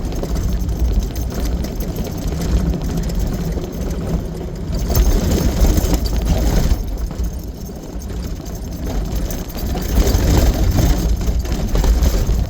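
A vehicle's engine running while it drives along a rough dirt road, with a steady low rumble that rises and falls in loudness.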